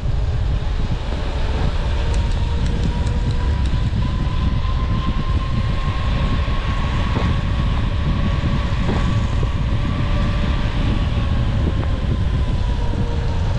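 Wind buffeting the microphone of a moving bicycle as a steady low rumble, with a faint steady hum that rises slightly in pitch and then falls back.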